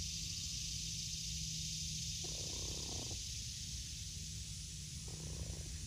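Silkie mother hen giving two low, purring clucks to her chick, one about two seconds in and a shorter one near the end, over a steady outdoor hiss.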